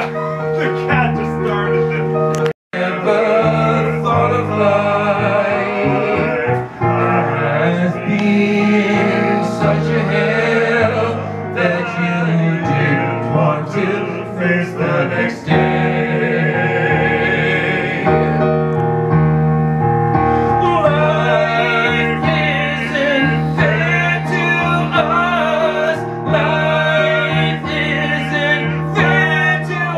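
Singers performing a song with digital piano accompaniment, the voices carrying the melody over sustained keyboard chords. The sound cuts out completely for a split second about two and a half seconds in.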